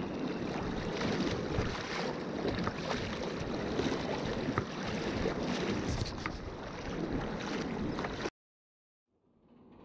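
Water sloshing and splashing around legs wading through a shallow, stony river, with small clicks among the rush. It cuts off abruptly about eight seconds in, leaving silence.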